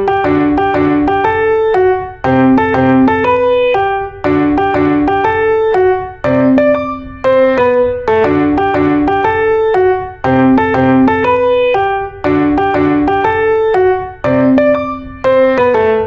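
Background piano music: a short phrase of struck notes that loops about every two seconds.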